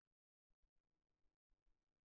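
Near silence, with only faint, intermittent crackles of low noise.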